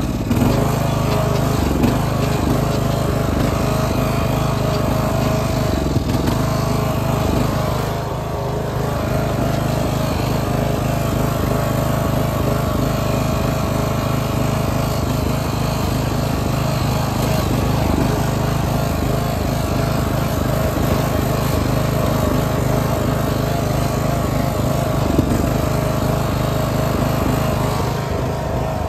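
Riding lawn mower engine running steadily while the mower is being driven.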